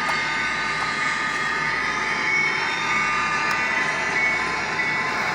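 Tyco HO scale model train running on the layout's track: a steady whir from the small locomotive motor and wheels on the rails, with a faint high whine.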